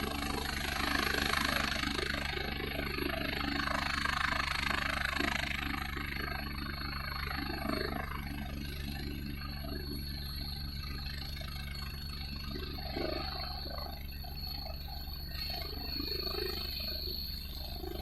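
Helicopter running: a steady low rotor and engine rumble with a thin high whine held on top, the rushing noise strongest in the first few seconds.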